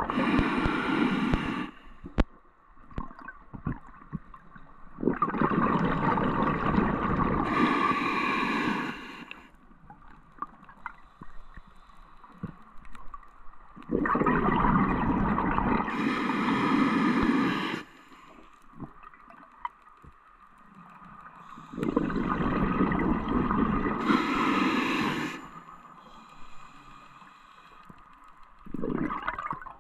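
A diver breathing underwater through a scuba regulator: each breath is a few seconds of bubbling and hissing, coming about every eight seconds, with quieter water between breaths.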